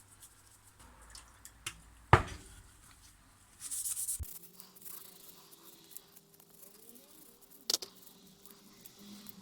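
Small workshop handling sounds while cold bluing solution is applied to a steel wrench: a sharp knock about two seconds in, a short hiss of liquid a little before halfway, then scattered light clicks and a single tap near the end.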